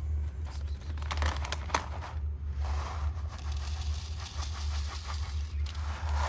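Cat-food bag crinkling and rustling as it is handled, with crackles in the first two seconds and a denser rustle for about three seconds from around the middle, over a steady low hum.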